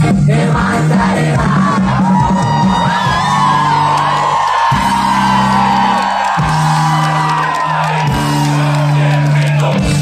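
Live pop music played loud over an outdoor concert PA, heard from within the crowd: a steady heavy bass line runs throughout. From about two and a half to eight seconds in, a long held voice rises over it amid crowd yelling.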